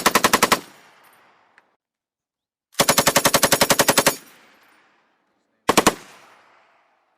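Machine gun firing in bursts of about ten rounds a second, each burst followed by an echo rolling away: a burst that stops about half a second in, a longer burst of about a second and a half near the middle, and a short burst of three rounds near the end.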